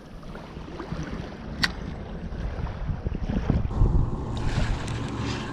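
Wind buffeting the microphone outdoors, an uneven low rumble, with a sharp click about a second and a half in and a few dull knocks past the middle.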